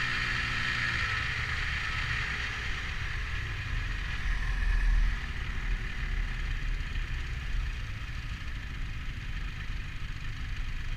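Snowmobile engine and track running while riding along a packed snow trail, with a steady hiss and clatter. A pitched engine note fades out about a second in, as the throttle eases. A louder low rumble swells briefly about four to five seconds in.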